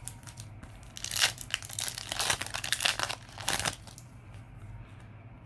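Foil booster-pack wrapper of Yu-Gi-Oh! cards crinkling and tearing as a pack is ripped open by hand, a rapid run of sharp crackles lasting a few seconds, starting about a second in.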